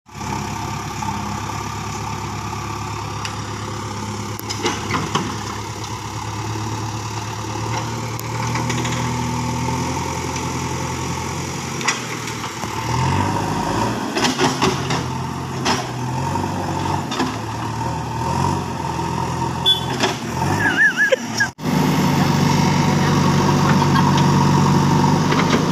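Diesel engine of a JCB backhoe loader running, with scattered metallic clanks; its note rises and shifts in the middle as it works. It cuts out briefly about 21 seconds in and then runs louder.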